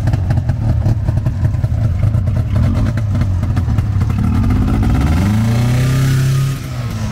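Two-cylinder two-stroke snowmobile engine (Taiga 500) running with a rapid rattling beat. About four and a half seconds in it is revved up in a rising whine and held, then drops back a second and a half later.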